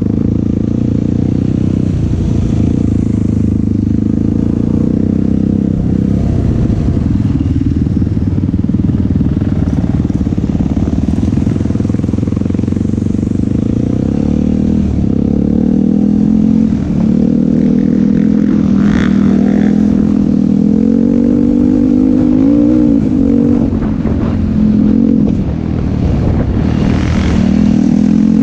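Yamaha YFZ450 SE sport quad's single-cylinder four-stroke engine running while riding, its pitch rising and falling with the throttle. The revs climb a few times in the later part.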